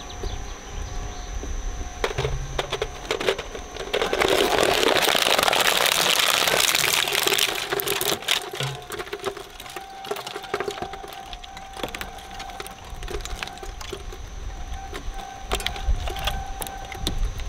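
Twin-shaft shredder running with a steady hum while its cutters chew through a plush Minion toy and its plastic insides: repeated cracks and snaps of plastic, with a loud, dense tearing crunch from about four seconds to seven seconds.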